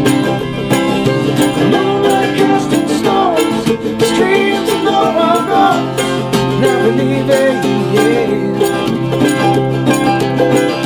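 An acoustic guitar strummed together with a picked mandolin in an unplugged two-man folk-pop performance, with two voices singing around the middle.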